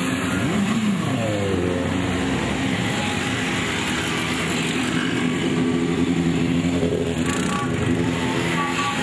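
Motorcycle, moped and scooter engines riding past one after another, their engine pitch rising and falling as they go by.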